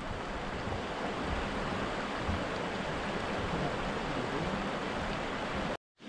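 Steady rush of a stream flowing beneath a wooden footbridge, with wind buffeting the microphone. The sound cuts off suddenly near the end.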